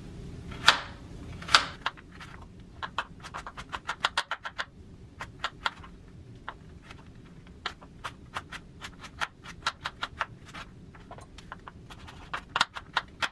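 Chef's knife dicing raw carrot on a wooden cutting board: quick, uneven runs of chops, the blade knocking the board several times a second, with a few louder chops early and again near the end.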